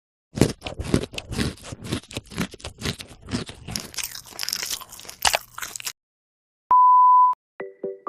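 Close-miked eating sounds: rapid crunching, biting and chewing of food for about six seconds. After a short silence comes a single steady beep, the loudest sound, then a synthesized jingle of quick repeated notes starts near the end.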